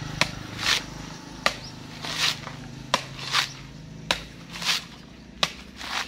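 Coconut being husked by hand with a blade: a sharp knock as the blade bites into the husk, then a tearing rustle as a strip of fibrous husk is pulled away, five times at a steady pace of about one every second and a half.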